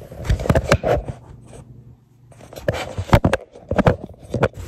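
Handling noise: a quick run of knocks, taps and scraping, in clusters with a brief lull about two seconds in.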